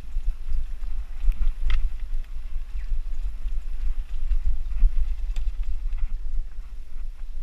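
Mountain bike riding over a dirt singletrack, heard from a bike-mounted camera: a constant low rumble of wind on the microphone and trail vibration, with scattered clicks and rattles from the bike and tyres over sticks and stones.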